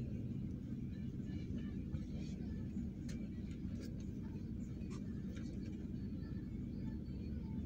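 Steady low rumble of a vehicle heard from inside its cabin, with a few faint clicks.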